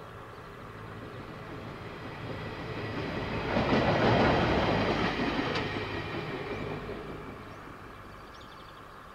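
KiwiRail diesel locomotive passing: its engine and wheel noise swell, peak about four seconds in, then fade as it moves away.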